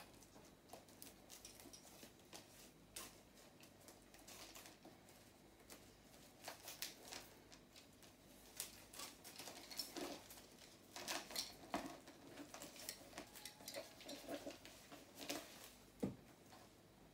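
Faint rustling of plastic protective film and snips of small scissors as the film is cut off a handbag's fittings, with scattered light clicks. The handling gets busier in the second half, with a sharp click near the end.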